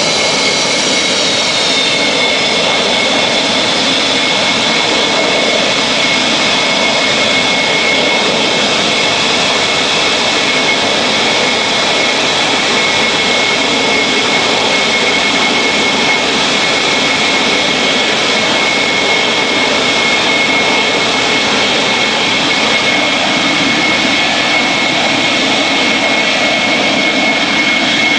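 Dassault Mirage jet fighter's SNECMA Atar turbojet running at taxi power. A loud, steady jet whine with high-pitched tones sits over a rushing noise, and the upper tone dips slightly in the first few seconds.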